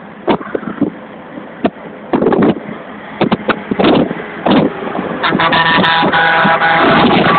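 Truck travelling at motorway speed, with irregular gusts of wind noise on the microphone; from about five seconds in, an overtaking MAN truck comes alongside and its engine and tyre noise grows loud and steady, with a clear engine note.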